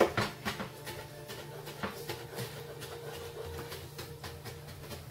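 Kitchen knife chopping on a wooden cutting board: a quick, irregular run of knocks, the sharpest right at the start.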